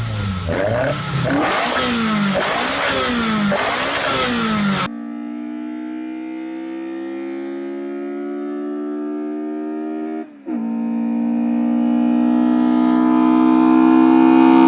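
Toyota 4A-GE 1.6-litre twin-cam four-cylinder revved in a series of quick blips. After a cut, the engine pulls under acceleration, its pitch climbing steadily, dipping at a gear change about ten seconds in, then climbing again.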